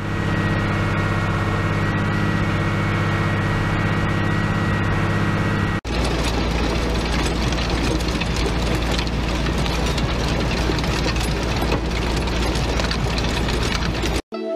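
Farm machinery engine running steadily, with a thin high whine over the engine note. A sudden cut about six seconds in switches to a noisier engine run with a deep rumble and a rattle of fine clicks, which stops abruptly near the end.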